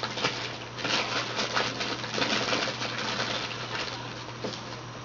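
Trading cards being handled and shuffled, a quick irregular run of light clicks and rustles that thins out near the end.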